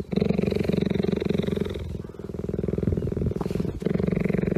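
Cheetah purring, a fast, even rumbling pulse that dips briefly about two seconds in.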